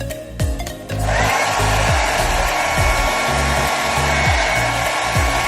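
Handheld hair dryer switched on about a second in and running steadily with a high whine, drying the holding spray on the wig's lace edges. Background music with a steady beat plays underneath.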